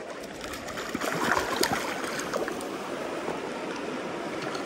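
Small freestone stream running over a gravel and cobble bed, a steady rush and trickle of shallow water, with a few short sharp splashes or knocks about a second in.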